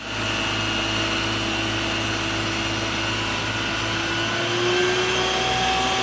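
Isuzu water tanker truck's engine and water pump running steadily while its roof-mounted water cannon sprays: a constant mechanical drone with hiss, rising slightly in pitch and level about four and a half seconds in.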